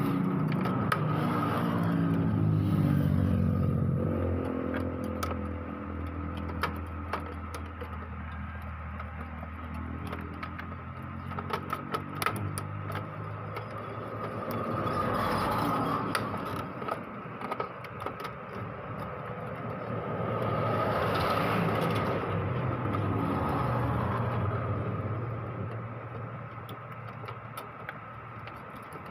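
Engine noise from passing motor vehicles, swelling near the start and again about two-thirds of the way through. Between the swells come light plastic clicks and scrapes as the printer's paper-feed roller parts are worked by hand, most of them about halfway through.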